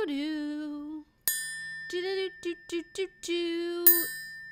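A woman singing a short jingle tune in held, wavering notes, accompanied by struck metal percussion: a bell-like chime hit about a second in and again near the end, ringing on in a high tone, with a few lighter taps in between.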